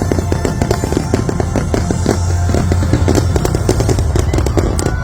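A dense, rapid barrage of fireworks bangs and crackles layered over loud show music, typical of a fireworks finale.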